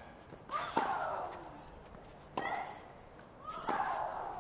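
Tennis rally: a racket strikes the ball three times, about every one and a quarter seconds. Each stroke comes with a player's grunt that falls in pitch.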